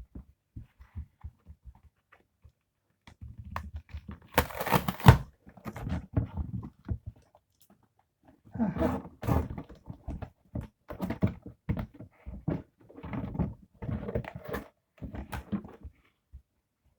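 Mail packaging being handled and torn open: scattered small clicks, a louder stretch of tearing and rustling about four to five seconds in, then a run of short, irregular rustles and crinkles.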